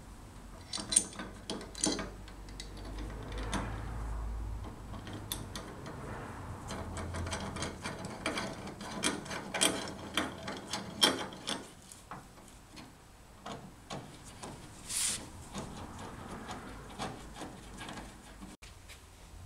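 Hand tool turning the bolts of a door striker plate on a Triumph Spitfire Mk3's door post: metal clicks and scrapes, a few single ones at first, then a quick run of clicks in the middle, and a short hiss later on.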